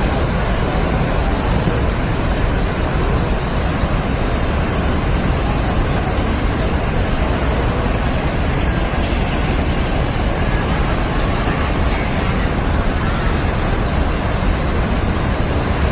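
Fast-flowing floodwater rushing, a loud, steady, even noise heavy in the low end.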